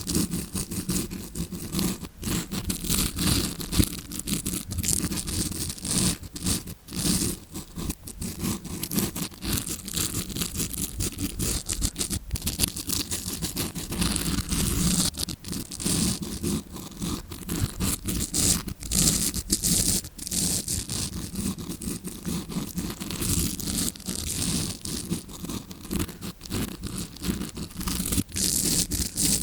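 Tawashi scrubbing brush scraped and rubbed right against a recorder's microphone, a dense, irregular stream of scratchy rustling strokes: a simulated ear-cleaning sound as heard from inside the ear.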